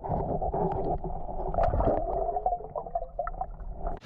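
Muffled water gurgling and sloshing with small knocks and clicks, the sound dull and cut off above the middle range.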